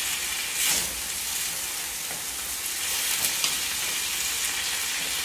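Whole cooked beans sizzling in hot lard in a frying pan while a wooden spatula stirs and scrapes them, with a brief louder surge of sizzling under a second in.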